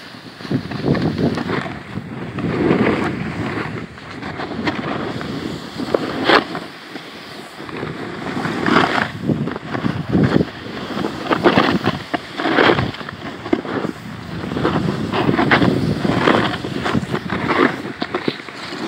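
Snowboard sliding over snow, its edge scraping in swells that rise and fall with each turn, mixed with wind rushing over the phone's microphone.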